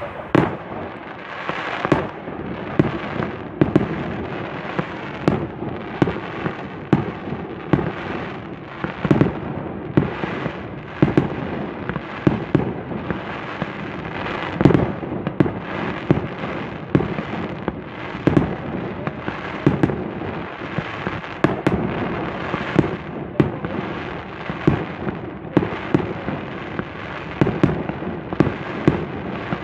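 Fireworks display in full barrage: a rapid, unbroken run of bursts, with sharp bangs coming often several times a second over a continuous background of smaller bursts.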